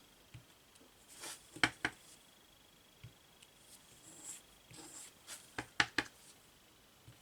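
Sharp paired taps, twice, of a clear stamp on its acrylic block being inked and pressed onto card, with faint ticks and light paper rustling between.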